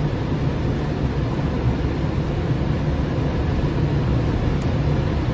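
Steady flight-deck noise of a Boeing 767 on final approach: an even rush of air with a low, steady hum beneath it.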